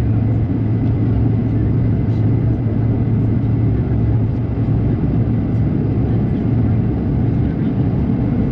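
Cabin noise of a Bombardier CRJ-200 regional jet in flight during its climb after takeoff: a steady rush of airflow and the drone of its rear-mounted GE CF34 turbofans, with a constant low hum and a faint steady high tone.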